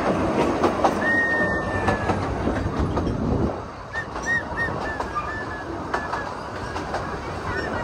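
Narrow-gauge train in motion, heard from an open carriage: a steady rumble and clickety-clack of wheels over the rail joints. A brief high squeal comes about a second in, and the running gets quieter about halfway through.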